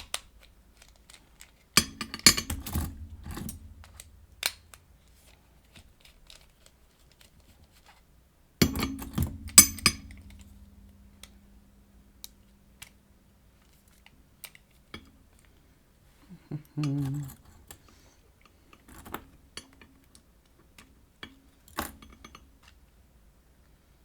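Small metal parts of a wafer lockout padlock clicking and clinking as the lock is taken apart by hand. The clicks come in a few bursts, the loudest clatter about nine seconds in.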